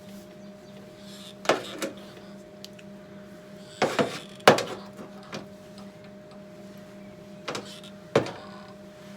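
Sharp metallic knocks and clinks from a steel repair panel being offered up and worked into place on a car body, about eight in three clusters, each with a short ring. A steady low hum runs underneath.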